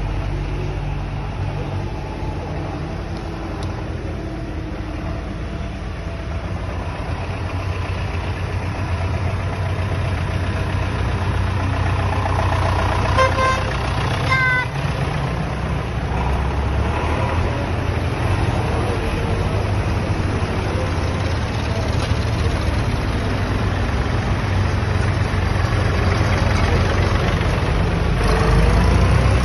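Vintage tractor engines running as tractors drive past one after another on a wet road. A horn toots twice about halfway through, as one tractor passes close.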